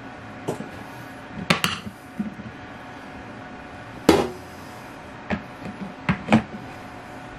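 Sharp clicks and knocks, about seven of them, from a hard plastic storage tote's snap-on lid and metal snake tongs being handled. There is a quick double knock early on, and the loudest knock comes about four seconds in.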